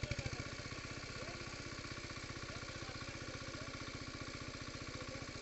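A small engine idling steadily with an even, rapid beat.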